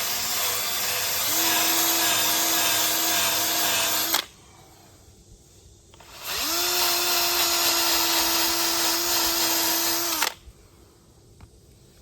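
Power drill spinning a Velcro-backed grinding pad to sand curb rash out of a wheel rim. It runs twice, each time for about four seconds with a steady whine, and the second run rises in pitch as it comes up to speed.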